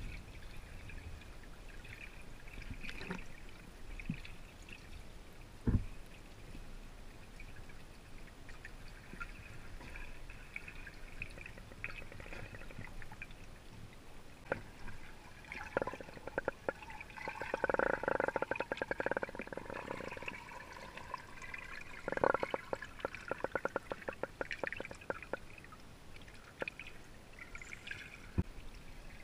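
Spring water heard underwater: a steady muffled wash, with two long stretches of rapid crackling clicks in the second half and a single dull knock about six seconds in.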